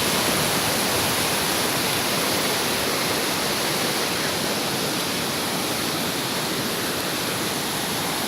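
Waterfall and fast-flowing river water rushing, a steady, even noise with no change.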